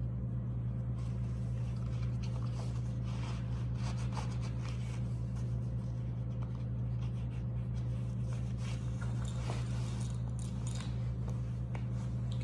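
A steady low hum, with faint rustling and light clicks from clothing and a leather belt being handled as a knife sheath on 550-cord loops is worked inside the waistband.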